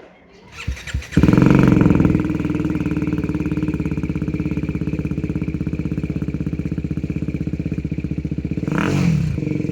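BMW G310R's single-cylinder engine with an aftermarket exhaust cranking and catching about a second in, then idling with an even, loud beat. Near the end the throttle is blipped briefly.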